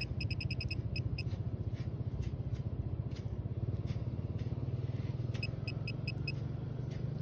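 XP MI-4 pinpointer beeping in quick, evenly spaced runs of short high beeps, up to about a second in and again about five seconds in, as it is pushed into wet sand close to a target. Under it runs a steady low rumble.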